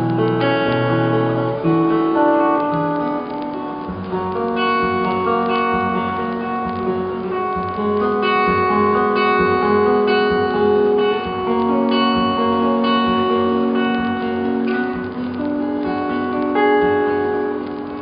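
Solo acoustic guitar playing an instrumental passage, with chords strummed and picked and the notes left ringing.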